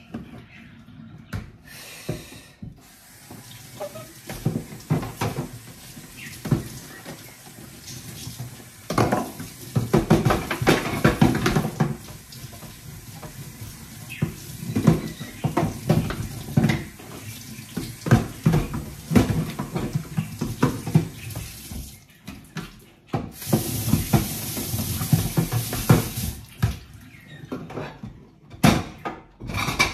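Dishes being washed by hand at a kitchen sink: tap water running and splashing, with plates and a plastic dish rack clattering and knocking. The tap runs hardest for a few seconds about three quarters of the way through.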